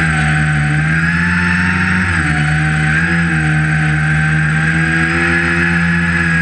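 Tricopter's electric motors spinning 11x4.7 propellers in flight, heard from the onboard camera: a steady buzzing drone whose pitch dips about two seconds in and again about a second later, over a thin high whine.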